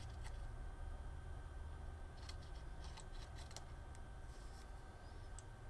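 Faint scraping of a pivoting-blade finishing tool drawn along the edge of a 3D-printed plastic scissor blade, shaving off rough printed edging. A few light scrapes come about two to three and a half seconds in, over a low steady hum.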